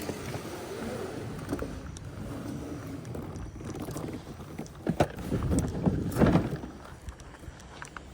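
Water sloshing and splashing against a small kayak's hull, with a few sharp knocks and a louder surge of splashing about five to six seconds in.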